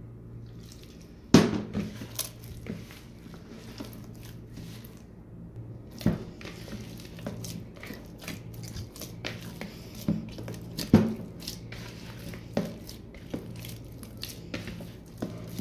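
Hands kneading soft roti dough in a plastic bowl, with water added a little at a time: squishing handling noise and a few sharp knocks of the bowl, the loudest about a second in, at about six seconds and at about eleven seconds.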